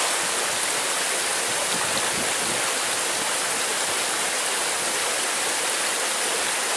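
Small waterfall and stream rushing steadily, an even wash of water noise.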